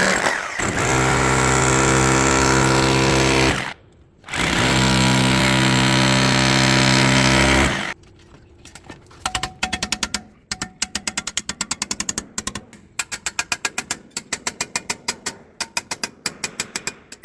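A hammer drill runs at full speed in two long bursts, stopping briefly about four seconds in. From about eight seconds it gives way to a rapid, irregular series of sharp mechanical clicks, several a second.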